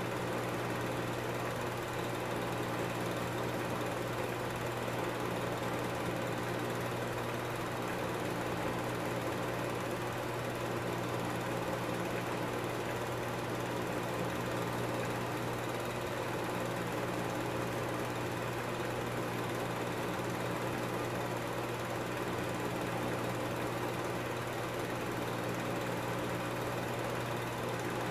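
A film projector running: a steady mechanical whir over a low hum.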